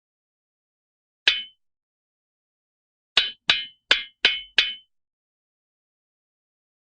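Cartoon-style knocking sound effect: one sharp knock, then after a pause a quick run of five, about three a second, each with a short hollow ring.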